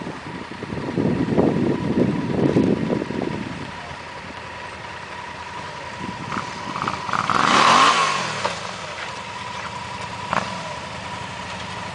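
Adventure motorcycle engines off-road: a bike revs unevenly for the first few seconds, another passes close and loud about eight seconds in, and an engine then runs steadily at low revs.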